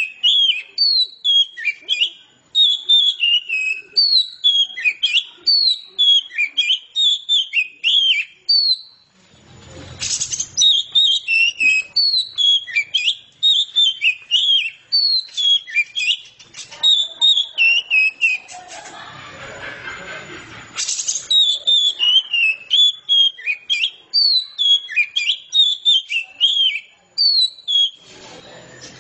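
Oriental magpie-robin singing non-stop in full voice: rapid, varied phrases of clear, high whistles following one another with hardly a pause. A sudden burst of noise about ten seconds in and a longer noisy stretch about two-thirds of the way through cut across the song.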